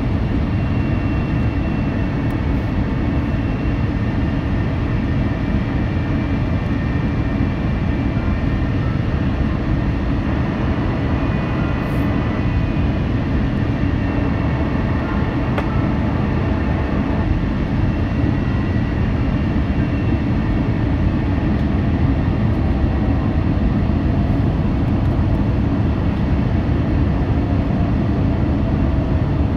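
Cabin noise of an Airbus A350-900 on final approach, heard beside the wing: a steady rush of airflow and the low rumble of the Rolls-Royce Trent XWB engines with a faint whine. The aircraft touches down about two-thirds of the way through, and the noise grows slightly as it rolls out on the runway.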